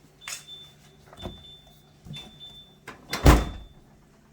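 Freezer door-open alarm ringing, a repeated high beep about once a second, then the freezer door shut with a loud thud about three seconds in, after which the beeping stops.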